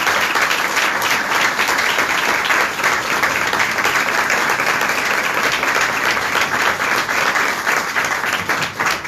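A small audience of a couple of dozen people applauding steadily, many hands clapping at once.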